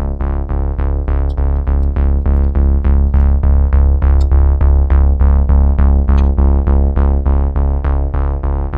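Electronic background music: a held synthesizer chord over heavy bass, pulsing evenly about four times a second.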